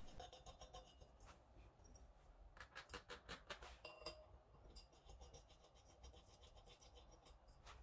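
Faint scratching and light metallic clicks of steel bolts being threaded by hand into a new rear sprocket on a motorcycle wheel hub, the bolts coated with threadlock and fitted loosely; most of the clicks come in a cluster a few seconds in.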